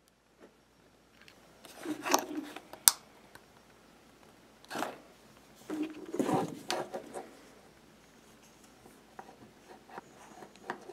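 Handling noises: rubbing and knocks in short bursts as a stitched leather wallet and tools are moved about on a desk, with one sharp click about three seconds in and a few faint clicks near the end.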